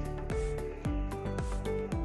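Background music with a steady beat of deep thuds, about two a second, under sustained melody notes.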